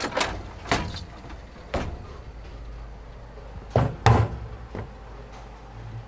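Bowling ball return: a low rumble of balls rolling along the return track, with heavy clacks as balls knock into each other and the rack. The clacks come at the start, just under a second in and near two seconds, and the loudest are two close together about four seconds in.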